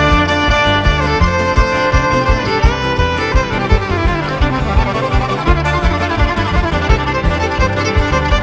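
Bluegrass band playing an instrumental break, a fiddle carrying the melody with some sliding notes over a steady bass and rhythm beat.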